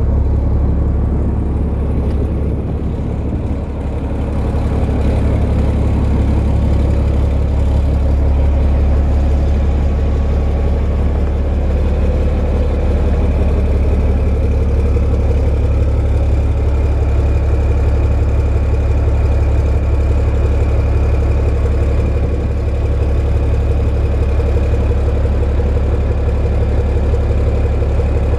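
Yanmar 6LAAK-DT 500 hp six-cylinder turbocharged marine diesel idling with a steady deep drone. It is running smoothly, with a slight dip in level about three to four seconds in.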